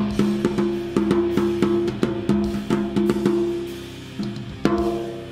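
Tama Silverstar mounted tom struck in a quick run of about a dozen hits, each ringing with a clear low pitch. After a short pause come two more hits near the end, and the last one is left to ring.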